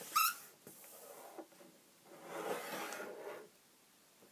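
A sheet of paper being folded by hand: a sharp crinkle right at the start, then about a second of rubbing a little past halfway as the fold is pressed flat against the table.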